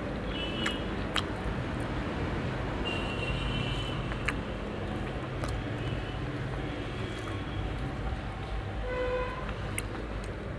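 Steady low rumble of street traffic, with a short car horn toot about nine seconds in. A few light clicks come from fingers mixing rice against a steel plate.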